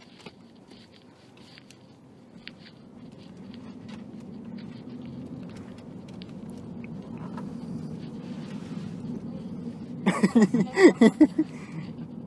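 Cabin sound of a MINI Cooper S with its 2.0-litre turbocharged four-cylinder: the engine and road hum build steadily as the car pulls away. A faint turn-signal ticks about three times a second in the first couple of seconds. A short, loud burst of voice comes near the end.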